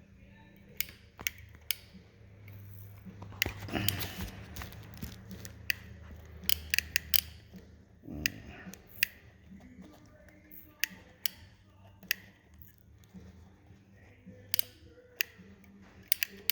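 Sharp clicks and clatter of small hand tools being handled, with a brief hiss about four seconds in and again about eight seconds in, over a low hum that stops about halfway through.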